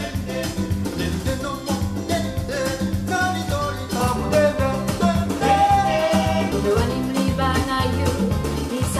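A song with a singing voice and a steady beat, played back through a pair of MB Quart 800 hi-fi loudspeakers as a sound test.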